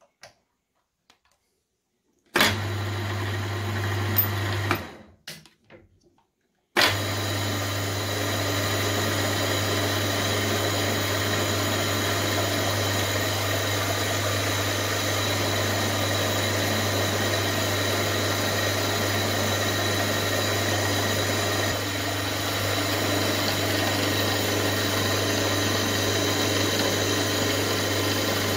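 A few faint clicks as a small drill bit is fitted in the chuck, then a small milling machine's spindle motor starts about two seconds in, runs briefly and stops. It starts again and runs steadily while the bit drills the holes for the rocker shafts in a brass rocker arm perch.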